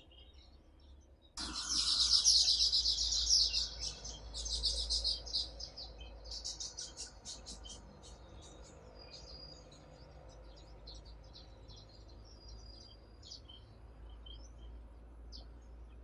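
Male weaver bird singing: a rapid, high chirping chatter starts suddenly about a second in and is loudest for the first few seconds. It then breaks into separate quick chirps and a few short whistled notes that thin out toward the end.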